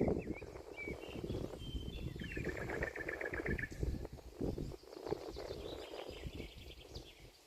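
Songbirds singing and calling outdoors: scattered short chirps, a fast even trill of about a dozen notes a couple of seconds in, and another higher trill near the end, over a low crackling rumble.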